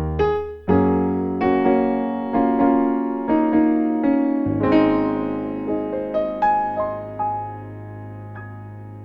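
Background music played on piano: a slow melody of struck notes over held chords, slowing and fading out with ringing sustained tones near the end.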